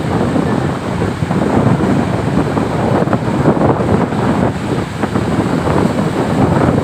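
Strong wind buffeting the microphone in gusts, over the steady rush of heavy surf.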